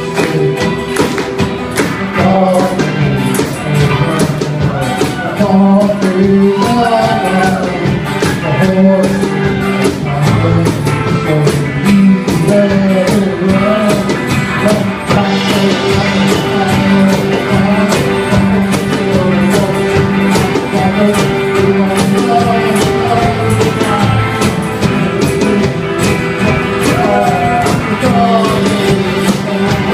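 Live pop performance: a group of women singing over a backing band with a steady driving percussion beat.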